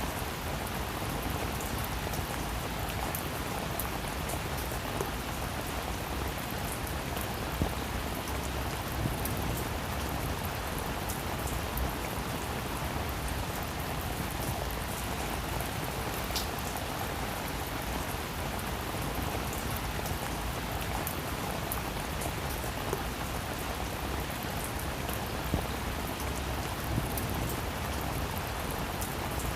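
Steady rain falling on a roof: an even hiss of rain with, now and then, a single sharper drop tapping.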